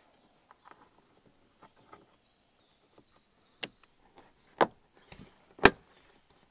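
Plastic licence plate lamp housing being pushed into its recess in the tailgate: light rubbing and handling noises, then three sharp clicks about a second apart, the last the loudest, as its retaining clips snap into place.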